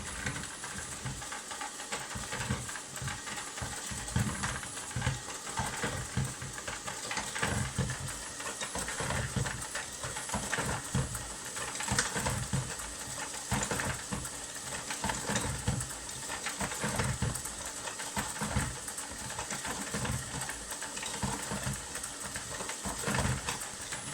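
ILIFE V50 Pro robot vacuum running while stuck, its suction fan giving a steady hum with a thin high whine, and irregular low knocks and rumbles as it pushes and struggles to free itself.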